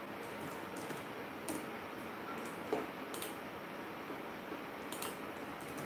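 Low room hiss with a few faint, scattered clicks from a computer mouse and keyboard being worked.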